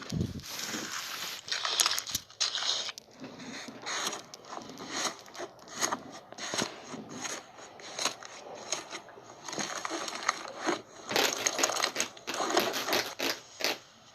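Slime being squished and worked by hand: an irregular run of crackles, pops and sticky clicks, busiest near the end.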